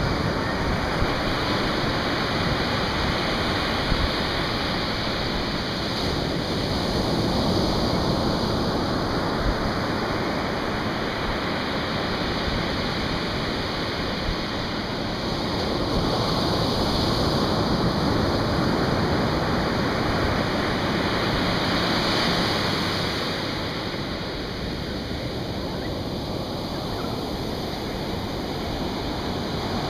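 Atlantic Ocean surf breaking and washing up a sandy beach: a steady rush that slowly swells and fades as the waves come in, loudest in the middle and softer near the end.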